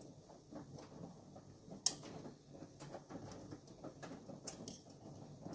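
Faint clicks and handling on a washing machine's control panel, with one sharp click about two seconds in.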